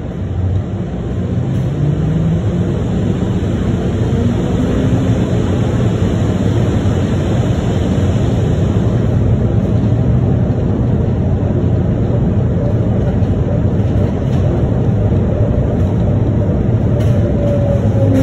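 The running noise of a Miami Metromover car, heard from inside: the rubber-tyred people mover rumbling along its concrete guideway with a motor whine. The noise builds over the first couple of seconds and then holds steady, and near the end a whine falls in pitch.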